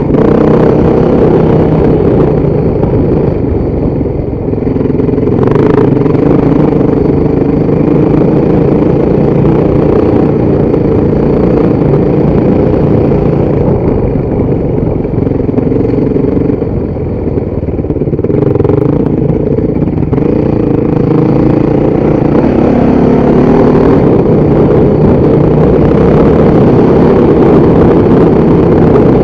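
Motorcycle engine running under way, its speed rising and falling with the throttle, easing off briefly twice.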